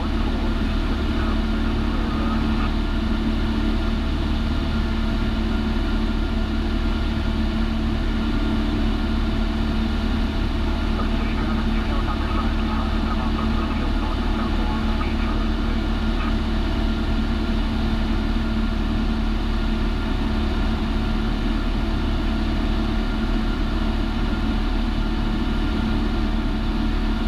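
Steady drone of a single-engine light airplane's piston engine and propeller, heard from inside the cockpit in flight.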